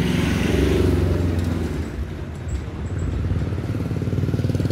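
Street traffic dominated by a small motor vehicle engine running close by, with a rapid low pulse. It is louder in the first second, eases off around two seconds in, and builds again near the end.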